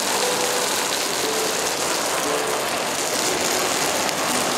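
Meat and bean sprouts sizzling steadily on a small griddle plate over a gas canister camp stove.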